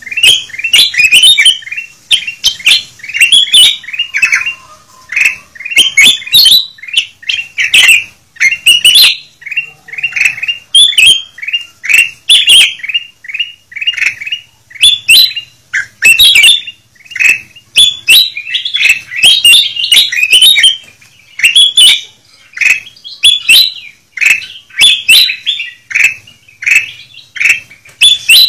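Kutilang emas bulbuls calling in a busy, noisy chorus: a rapid run of short, bright, downward-sweeping chirps, one after another with only brief pauses. It is a bird-lure recording meant to draw wild kutilang emas in.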